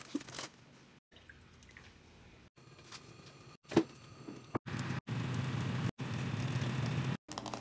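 Burritos frying on shredded cheese in a nonstick pan: a steady sizzle that grows stronger about halfway through, broken off abruptly several times. One sharp knock sounds a little under four seconds in.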